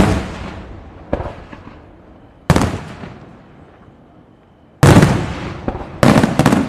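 Aerial firework shells bursting: four loud bangs about one to two seconds apart, with a weaker one about a second in, each dying away over a second or so.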